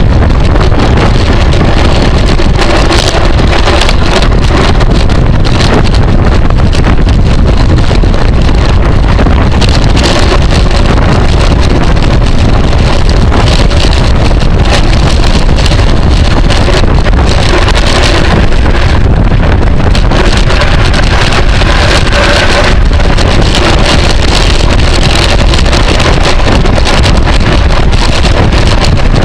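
Heavy wind buffeting the microphone of a camera moving at race speed on a bicycle: a loud, constant rumbling roar.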